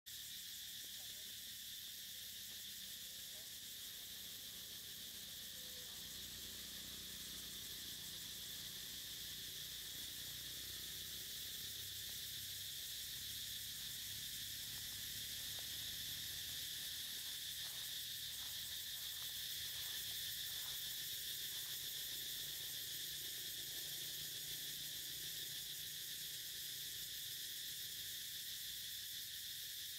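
Steady chorus of insects, a continuous high-pitched drone that does not change, with a few faint soft taps in the middle.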